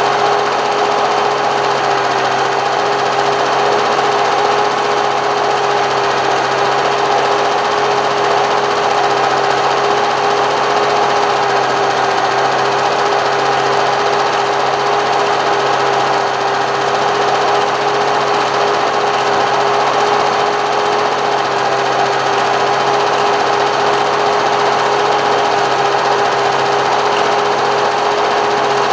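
A steady mechanical whirring drone that keeps one constant pitch and does not change.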